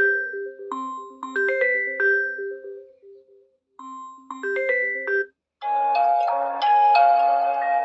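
Samsung Galaxy Tab A7 Lite ringtones playing. A short, bright, mallet-like melody repeats twice, then cuts off, and a different, fuller ringtone starts about five and a half seconds in.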